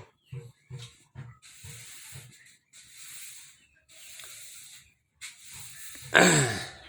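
Palm oil mash sizzling in a pan over a fire, in a series of hissing bursts about a second long, with soft low knocks early on. Near the end comes a loud short call that falls steeply in pitch.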